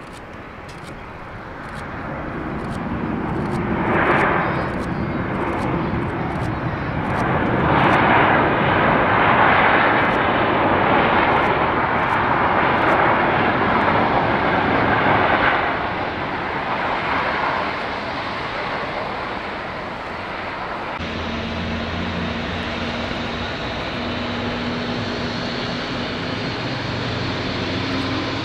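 Boeing 737-800's CFM56 jet engines at takeoff thrust on the takeoff roll: the noise builds over the first few seconds, is loudest from about 8 to 16 s, then fades. About 21 s in it cuts abruptly to a quieter steady hum with a couple of low held tones.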